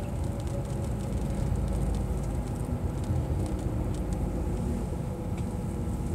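Steady low rumble inside the cabin of a bus on the move: engine and road noise.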